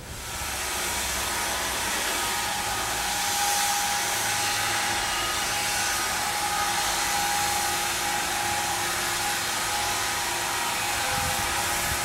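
Sawmill machinery running: a steady whirring hiss with several held tones, starting abruptly.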